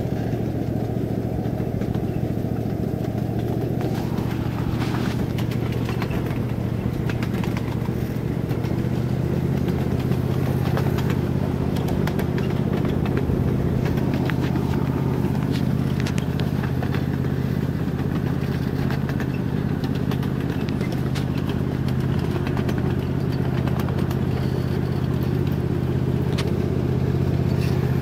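Small engine of a ride-on miniature railway train running steadily as it travels along the track, its note picking up a little about ten seconds in, with scattered clicks and rattles from the running gear.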